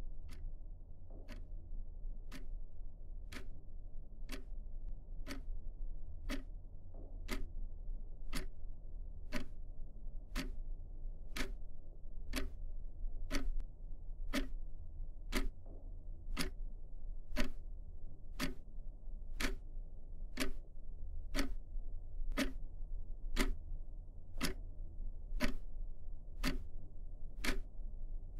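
Wall clock ticking steadily, one tick a second, over a low steady hum.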